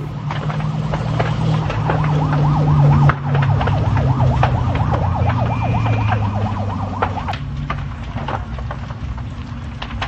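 Fire engine siren on a fast yelp, its pitch swooping up and down several times a second over a loud low rumble, cutting off about seven seconds in. Scattered sharp cracks and pops run throughout.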